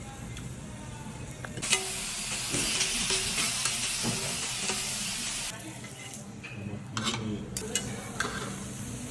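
Food sizzling in a hot pan: a loud frying hiss that starts about two seconds in as the food goes onto the hot surface, dies down to a softer sizzle a few seconds later, and is followed by a few sharp clicks.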